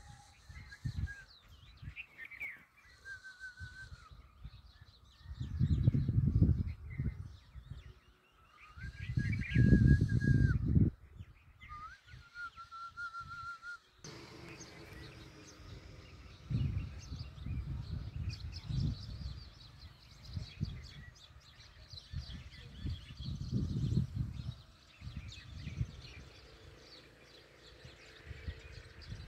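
Birds calling outdoors with short whistled notes and faint chirps, while gusts of wind buffet the microphone, loudest twice in the first half.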